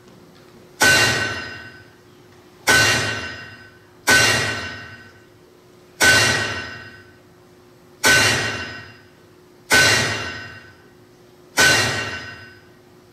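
A hammer striking a nail: seven slow, evenly spaced blows, each ringing with a metallic tone that fades over about a second.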